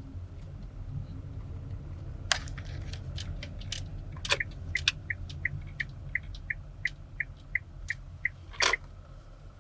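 Inside a car: a low steady hum with a handful of sharp clicks, then a car's warning chime dinging about three times a second for a few seconds, and a loud click near the end.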